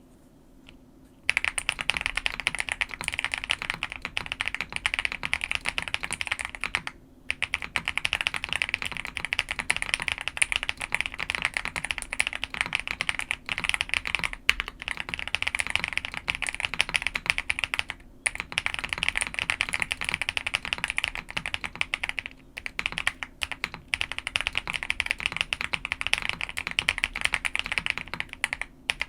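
Fast, continuous typing on a custom OwLab X Mr. Suit TKL mechanical keyboard, with lubed Boba U4T tactile switches, a POM plate and CRP Tulip keycaps, giving a deep, muted 'thock'. It starts about a second in, with a few brief pauses.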